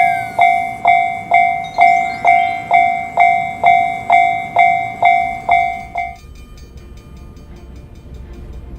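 Japanese level-crossing warning bell ringing its 'kan-kan' alarm, a struck metallic tone repeating about twice a second, which stops about six seconds in. A quieter low train rumble follows.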